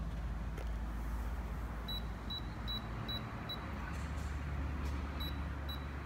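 Dometic 24-volt microwave oven keypad beeping as its buttons are pressed: five short high beeps in quick succession, then two more near the end. A steady low hum runs underneath.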